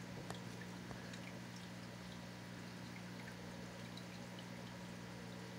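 Quiet steady low hum with faint hiss and a scatter of tiny soft ticks.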